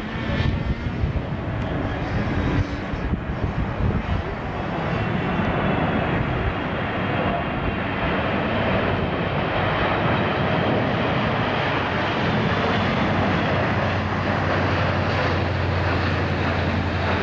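Jet engines of a Boeing 777-200ER on its landing approach, growing louder about four seconds in and then holding steady with a faint whine. Gusty wind buffets the microphone at the start.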